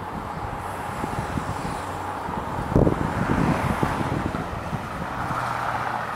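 Road traffic: cars driving by beneath on the street, the loudest one passing about three seconds in, with wind buffeting the microphone.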